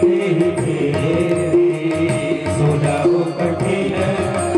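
Devotional Indian music: a harmonium playing a held melody over a hand-drum rhythm, an instrumental passage between sung lines of a Ram Katha chaupai.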